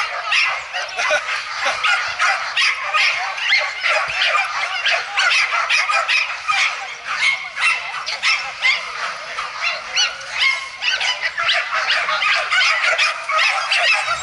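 Excited terriers yelping and barking in rapid, overlapping high-pitched calls without a break. These are racing dogs worked up at the starting box before a lure race.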